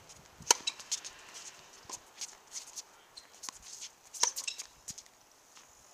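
Tennis rally: a ball struck hard with a racket, sharp pops about half a second in and again just past four seconds, with softer ticks of other shots, ball bounces and footsteps on the hard court between.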